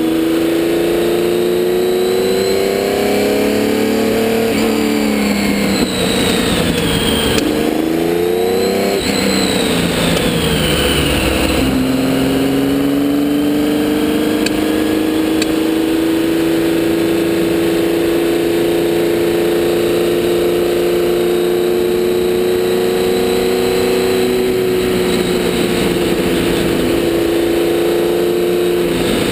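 Porsche 917K's air-cooled flat-twelve racing engine heard onboard at speed. Its pitch climbs, drops about four seconds in, climbs again, and falls away over a couple of seconds around ten seconds in. It then rises slowly and steadily under a long pull.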